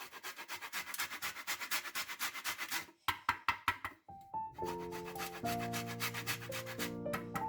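A lemon being zested on a metal grater: quick, repeated rasping strokes. Background music with sustained chords comes in about four seconds in, with the scraping still going on more faintly.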